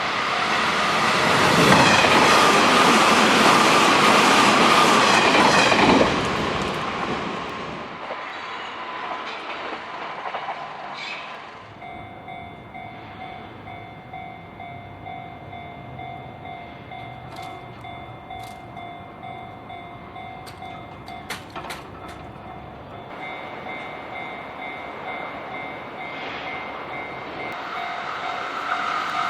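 Electric commuter train passing over a level crossing, loud for about the first six seconds and then fading away. A level crossing warning bell then rings on in steady tones, with a few sharp clicks, and another train draws closer near the end.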